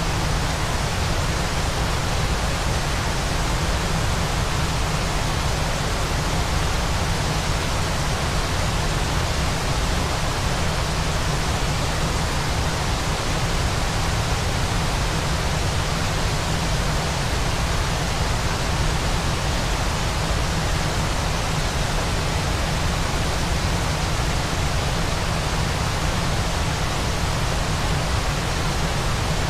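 Waterfall: a steady, unchanging rush of falling water, with a heavy low rumble beneath an even hiss.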